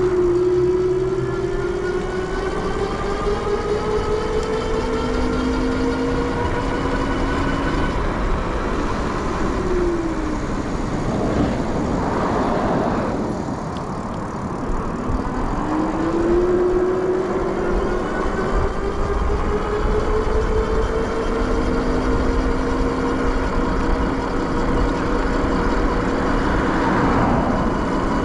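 Super73 Z Miami electric bike's hub motor whining under throttle, its pitch rising as the bike speeds up. The pitch falls and gives way to a louder rush of wind and road noise for a few seconds as the bike slows, then rises again and holds steady. Wind and tyre noise run underneath throughout.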